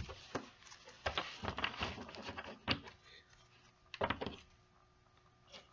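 Playing cards being gathered and squared into a deck on a tabletop: a run of soft clicks, taps and slides, dying away near the end.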